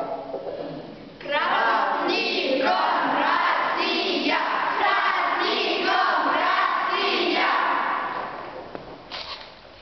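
A group of children's voices calling out together in chorus, in loud, even phrases that fade out about two seconds before the end.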